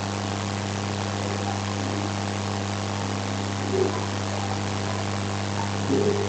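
Steady background hiss with a constant low electrical hum, the noise floor of a video-call microphone. Two faint brief sounds come about four and six seconds in.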